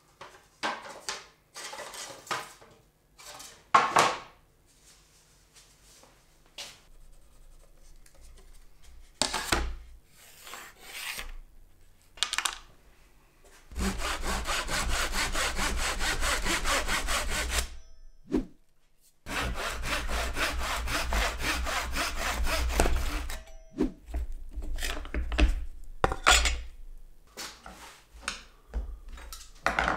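Japanese ryoba pull saw cutting a wooden board with fast, even strokes, in two runs of about four seconds each with a short break between. Before the sawing, wooden boards knock and clatter as they are handled, and scattered knocks follow after it.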